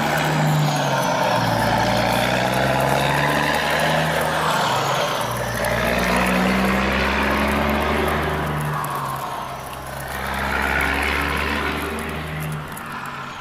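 Heavy truck engine running, its pitch rising and falling as it revs, under a loud rushing noise; it cuts off abruptly at the end.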